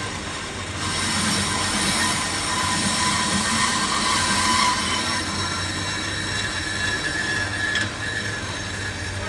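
Brake disc lathe turning a warped Toyota Avanza brake rotor, the cutting tool scraping across the spinning disc with a steady metallic squeal. It grows louder from about a second in to about five seconds. The disc has heavy runout, so the tool cuts unevenly around it.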